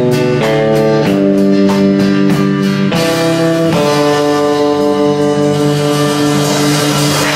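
Live rockabilly band of acoustic and electric guitar, upright bass and drums playing the close of a song. Strummed chords change about twice a second for the first three seconds, then the band holds a final chord that rings on to the end.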